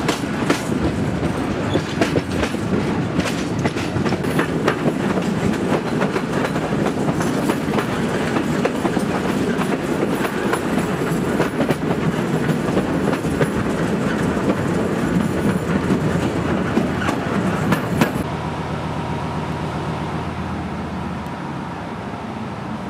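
Moving passenger train heard from a carriage window: a steady rumble of wheels on rails with many sharp clicks as the wheels cross rail joints. About eighteen seconds in the sound cuts to a quieter, steady hum with a faint held tone.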